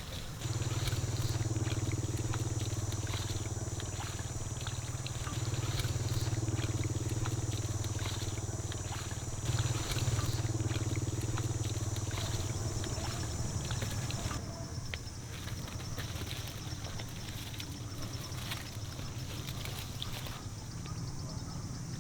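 A small motor running with a steady low hum that fades about twelve seconds in. Over it a steady high buzz stops about fourteen seconds in, with scattered light clicks throughout.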